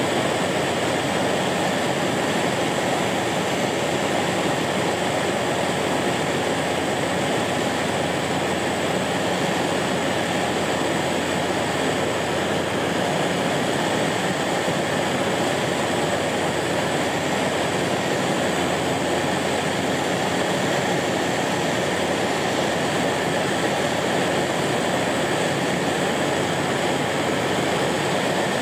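Steady drone of a floatplane's propeller engine and airflow in flight, heard from inside the cabin.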